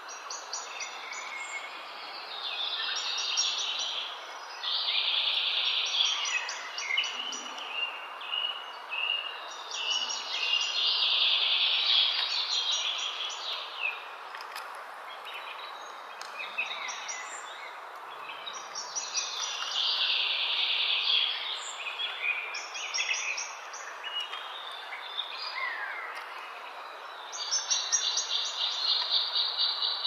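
Birds chirping and calling against insects trilling in fast, even pulses; the trilling swells and fades several times and settles into a steady trill near the end.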